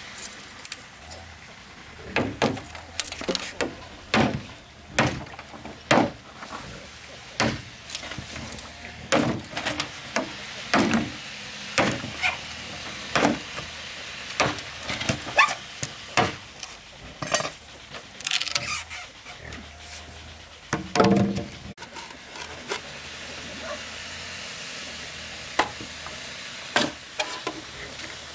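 Sharp knocks of a blade striking a green bamboo pole, roughly one a second and irregular, stopping a few seconds before the end with a couple of last knocks near the close.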